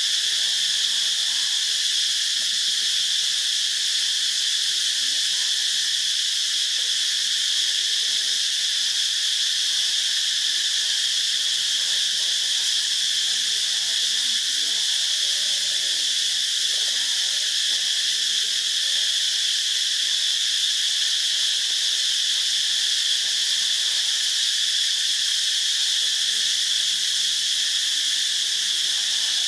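A dense chorus of insects: a steady, high-pitched drone that neither breaks nor changes in level.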